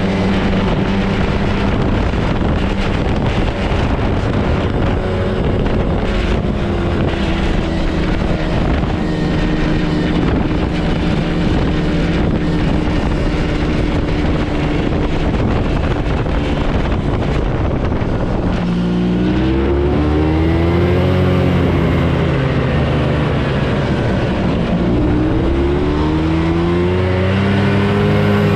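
Yamaha Bravo snowmobile's two-stroke engine running at a steady speed over track and snow noise, then easing off about two-thirds of the way through and revving up again twice in rising sweeps.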